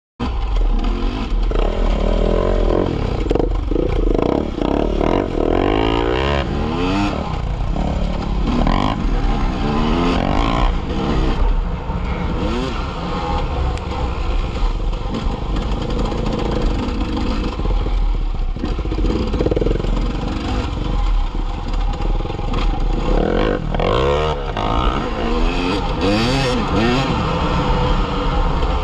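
Enduro motorcycle engine heard from on board the bike, revving up and dropping back again and again as it rides a dirt trail, over a constant low rumble.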